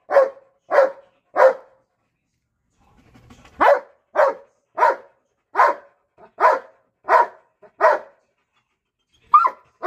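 Belgian Malinois barking: three sharp barks, a pause of about two seconds, then a steady run of about seven barks a little more than a second apart, and two more near the end.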